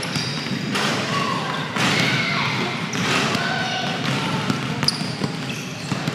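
Basketball bouncing on a hardwood gym floor, a string of thumps at uneven intervals, echoing in a large gym.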